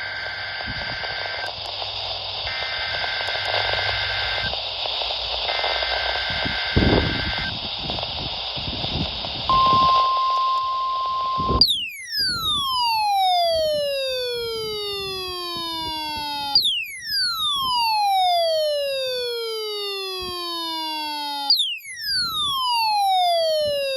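Weather radio received through static: three bursts of the two-tone warbling data header of an emergency alert test, then a steady alert tone for about two seconds. Then the static drops out and a clean electronic tone sweeping down in pitch, rich in overtones, repeats three times about five seconds apart.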